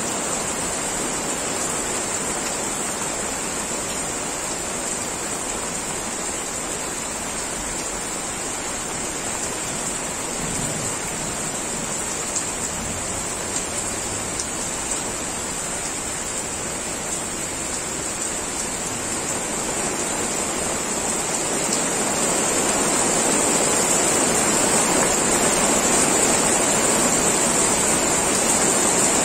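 Steady rain falling, an even hiss with a steady high-pitched band on top. It grows louder about three-quarters of the way through as the downpour thickens.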